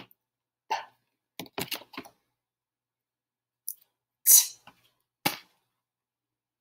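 A woman saying single letter sounds one at a time: short puffed consonants such as "p" and "t", each cut off sharply, with pauses between them. The loudest is a hissy burst about four seconds in.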